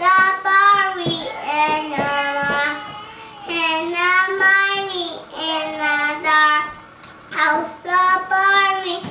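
Young girl singing a made-up tune on her own with no accompaniment, in long held phrases that slide in pitch, with short breaks about three and seven seconds in.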